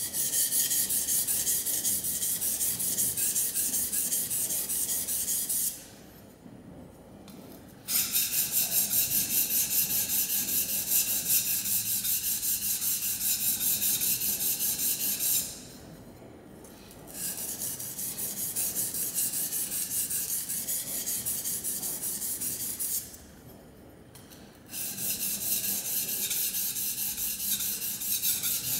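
Steel plane iron from a Record No. 4 plane stroked freehand back and forth on a Norton Crystolon silicon carbide oil stone wetted with sewing machine oil: a high-pitched, gritty rasp of steel on abrasive stone. It comes in four bouts of rapid strokes with short pauses between them, the third bout a little softer.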